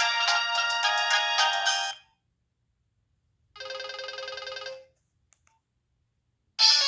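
Preloaded ringtones playing from a Nokia 1209 mobile phone's speaker: one melody stops about two seconds in, a short, quieter warbling tone sounds in the middle, and a new, loud melody starts near the end.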